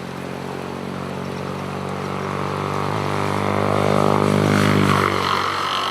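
A motor vehicle's engine running steadily and growing louder as it comes closer, loudest about five seconds in, then fading as it passes.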